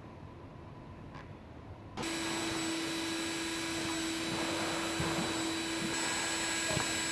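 Pen-sized handheld electric tool running steadily, a small motor's whine and hiss over a constant hum-like tone, starting abruptly about two seconds in. Before that, only faint background with a couple of light ticks.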